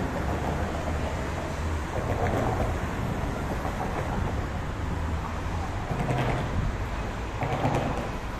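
Steady low rumbling background noise, with a few faint, indistinct swells over it.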